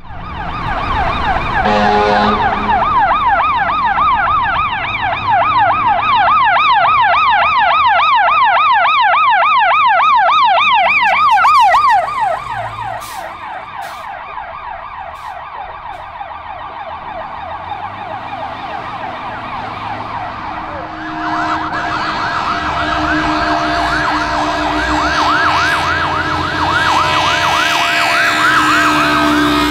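Fire truck sirens. A fast, rapidly rising and falling yelp siren is loud at first, with a short horn blast about two seconds in, then drops away sharply about twelve seconds in as the truck passes. From about twenty-one seconds a second fire truck's siren with a steady horn tone under it grows louder as it approaches.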